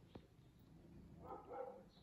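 Quiet outdoor ambience with a faint click near the start and a couple of short, faint animal calls about a second and a half in.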